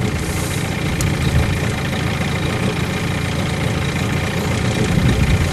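A small boat's motor running steadily, with a low, even engine drone. A short click about a second in.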